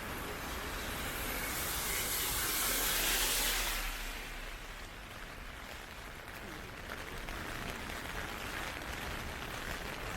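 Heavy typhoon rain, a steady hiss that swells louder between about two and four seconds in, then settles back.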